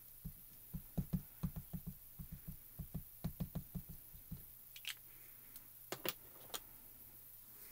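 Small Altenew ink cube dabbed repeatedly onto a clear stamp: a quick, uneven run of soft, dull taps for about four seconds. A few sharper clicks follow as the acrylic stamp block is handled and set down.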